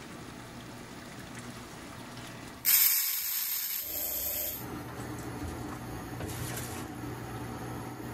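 A sudden loud hiss from the cooking pot about three seconds in, dying down over about two seconds, with a shorter fainter hiss a little later, over a steady low hum.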